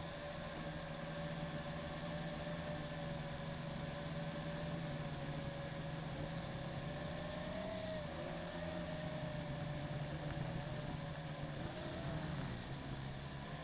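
Small quadcopter's motors and propellers whirring in flight, a steady whine whose pitch wavers briefly about eight seconds in and again near the end as the throttle changes.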